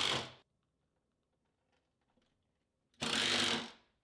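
Impact driver with a long bit extension driving screws into a butcher block countertop: a short burst ending just after the start, then a longer burst of about three quarters of a second about three seconds in, with near silence between.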